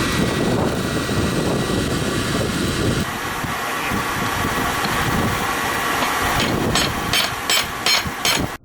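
Steady rushing noise, then near the end a quick run of about six sharp metal-on-metal hammer blows, roughly four a second, as a rivet is hammered to set the hinge of a pair of forged tongs.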